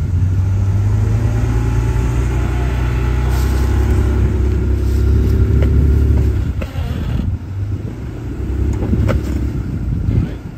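Rock-crawling Jeep on large off-road tires climbing a rock ledge: its engine runs under steady load for about six seconds, then eases off and comes back unevenly, with a few sharp knocks near the end.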